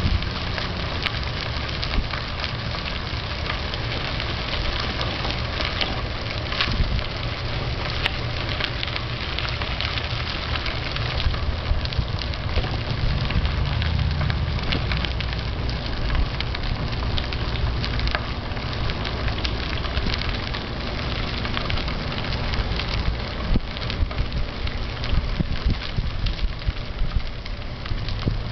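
Bicycle tyres rolling over a crushed-gravel trail: a steady crackling hiss full of small crackles, over a low rumble.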